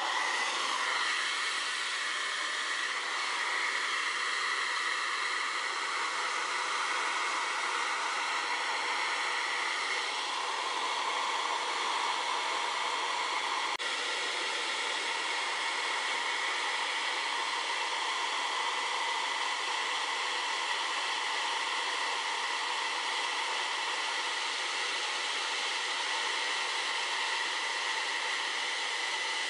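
Remington Air Wave hair dryer with its wind tunnel attachment, switched on at the start and running on its highest, hottest setting: a steady, noisy rush of air with a high motor whine.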